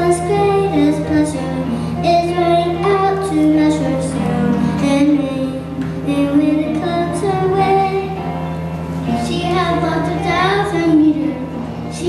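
Children singing a song together, with held notes that slide between pitches, over a steady low hum.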